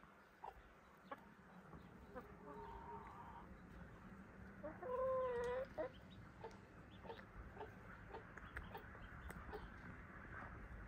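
Farmyard poultry calling: a faint call about two seconds in, then a louder, wavering call of about a second near the middle, with a few faint ticks around.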